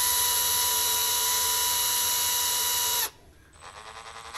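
Electric drill spinning an RC truck's center driveshaft held in its chuck with a steady whine, then stopping about three seconds in. The shaft is being spun to check it for a bend.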